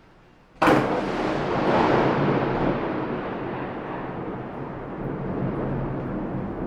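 A thunderclap: a sudden sharp crack about half a second in, then a long rolling rumble that slowly fades.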